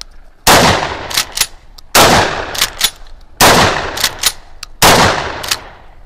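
Pump-action shotgun firing 24-gram trap and skeet cartridges: four shots about a second and a half apart, each followed by short metallic clacks as the fore-end is racked to chamber the next round.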